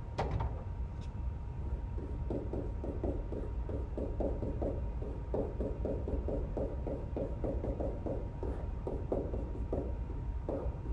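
Stylus writing on a tablet screen: a quick run of short scratching strokes and taps that starts about two seconds in and stops near the end, over a steady low hum.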